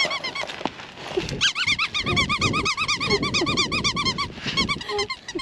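A dog chewing a squeaky chew toy, squeezing out rapid squeaks several a second in runs: a short run at the start, a long run through the middle and short bursts near the end.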